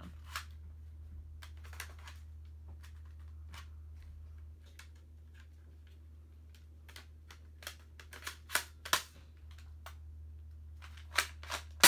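Plastic airsoft gun parts being handled and fitted together: scattered clicks and knocks, coming more often in the last few seconds and ending in one sharp, loud click.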